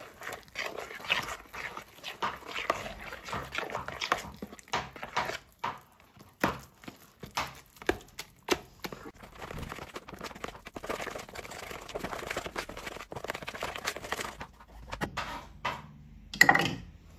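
A fork stirring and mashing a wet mix of minced fish, bread and raw egg in a bowl, with irregular clicks and scrapes of the fork against the bowl, and one louder knock near the end.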